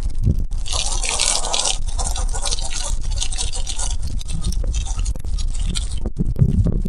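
Water from an outdoor shower pouring and splashing onto a smartphone held in cupped hands, a steady hiss that is strongest from about half a second to two seconds in.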